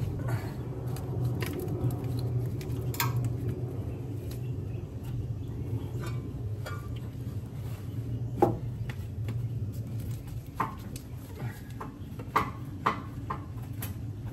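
Scattered metal clinks and knocks of tools and exhaust-manifold parts being handled while the manifold is worked loose from the engine, at irregular intervals over a steady low hum.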